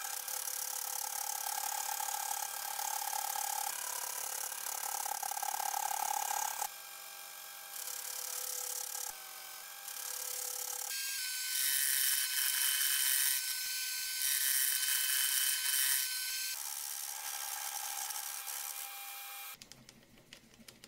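Milling machine cutting gear teeth into a metal gear blank with a disc-shaped gear cutter: a steady machine whine with several steady tones. It changes abruptly several times as the shots change, and drops much quieter near the end.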